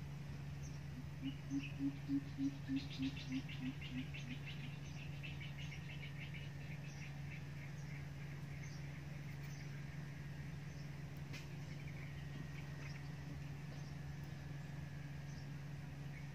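Coucal giving its deep hooting call: a series of about ten evenly spaced low hoots, about three a second, falling slightly in pitch toward the end. Faint high chirps of small birds or insects and a steady low hum run underneath.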